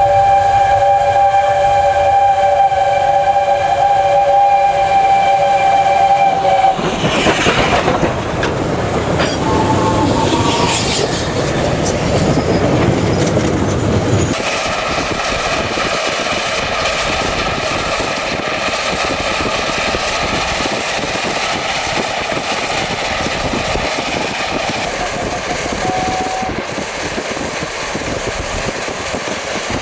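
Steam locomotive whistle blowing a steady chord of several notes for about seven seconds. It gives way to a loud rush of noise from the doubleheaded 15CA and 25NC steam locomotives working, which about halfway through settles into steadier train running noise.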